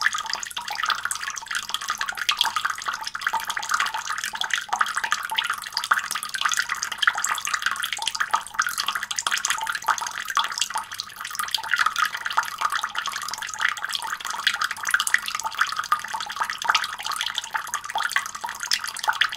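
Water running in a thin stream, splashing in a dense, continuous patter of small drops.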